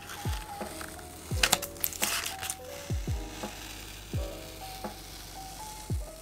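Masking tape being peeled off paper in two short rasping pulls, a little over a second in and again at about two seconds. Soft background music with repeated falling bass notes plays underneath.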